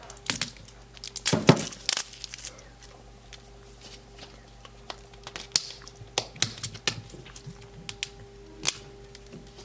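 Plastic wrap crinkling and tearing, with scattered sharp clicks, as a Mini Brands plastic capsule ball is peeled and worked open by hand. The busiest handling comes between about one and two seconds in.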